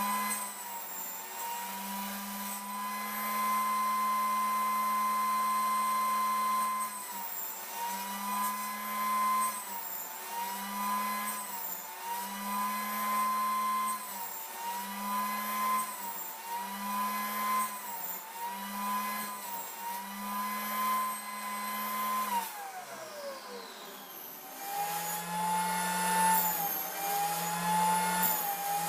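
Table-mounted wood router running at high speed with a steady whine. Its pitch sags and recovers every second or two as the plywood is fed into the bit and the cut loads the motor. Near the end the pitch slides down, then it runs on at a slightly lower pitch.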